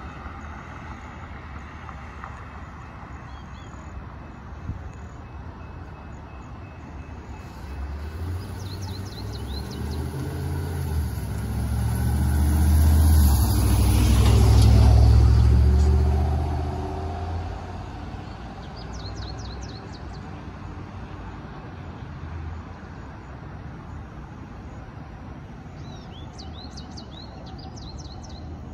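Street traffic with a heavy vehicle's deep engine rumble that builds, is loudest about halfway through and fades away a few seconds later. Birds chirp on and off.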